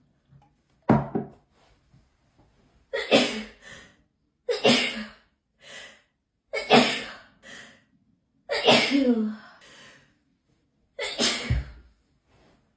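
A person's hay fever sneezing fit: six sneezes in a row, about two seconds apart, each a sudden loud burst that dies away quickly.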